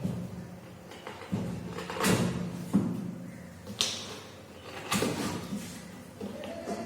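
Cardboard packing box being handled and opened: about six dull knocks and thumps spread over several seconds, with short scraping and rustling between them.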